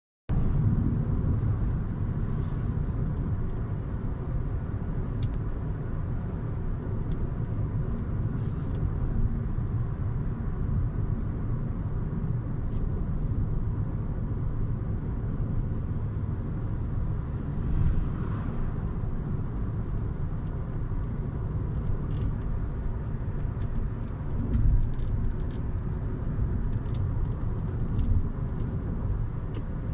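Inside the cabin of a new Hyundai Creta on the move: steady road and engine rumble, with short creaks and clicks here and there from the plastic trim of the centre console tunnel. The creaking is a loose or rubbing trim panel, a fault common to new cars of this model.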